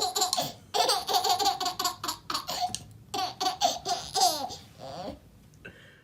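A person laughing hard in several fits of rapid, high-pitched bursts, dying down near the end.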